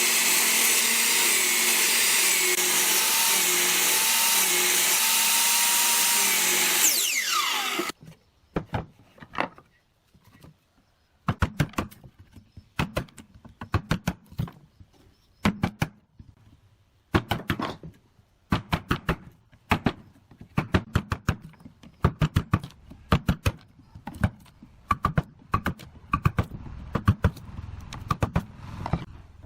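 A power tool runs loudly and steadily, then is switched off about seven seconds in and winds down with a falling whine. A long series of sharp knocks in short clusters follows, wood being worked by hand.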